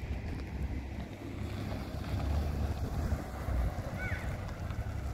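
Wind buffeting the microphone: a low, uneven rumble with a brief high chirp about four seconds in.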